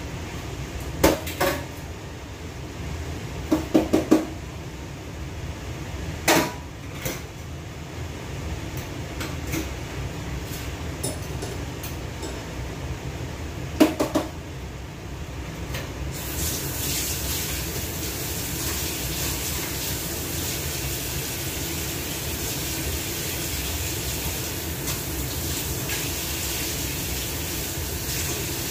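Kitchenware clattering: dishes, utensils and cupboard knocks, a handful of sharp clanks in the first half. About sixteen seconds in, a tap is turned on and water runs steadily into the kitchen sink with an even hiss. A steady low hum sits underneath.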